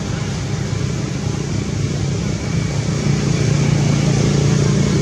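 A steady low engine-like drone with a hiss over it, getting a little louder about three seconds in.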